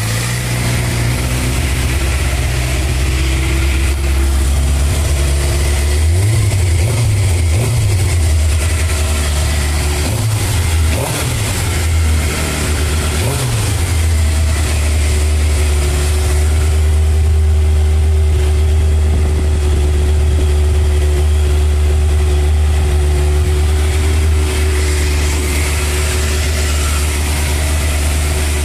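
Suzuki GSX-R750 inline-four engine idling through its freshly fitted stock full exhaust. Its speed rises briefly a few times between about six and fourteen seconds in, then it settles into a steady idle.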